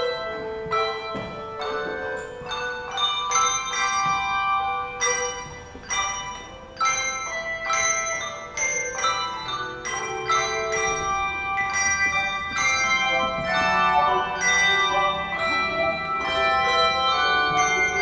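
A handbell ensemble playing a piece: several bells rung together as chords in a steady rhythm, each stroke ringing on into the next.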